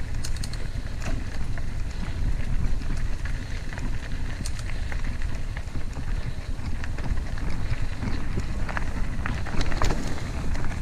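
Mountain bike being ridden over a dirt trail: a steady low rumble of wind and tyres, with scattered clicks and rattles from the bike and gravel.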